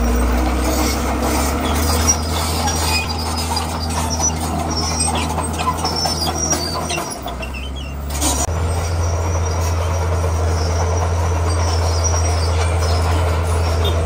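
Crawler bulldozer's diesel engine running under load as it pushes crushed stone, with metallic squeaks and clanks from the tracks. The engine eases off briefly about seven seconds in, then picks up again and runs steadily.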